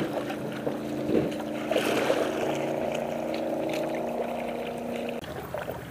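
Canoe under way on a river: water splashing and lapping at the hull and paddle, with wind on the microphone. A steady low drone runs underneath and changes abruptly about five seconds in.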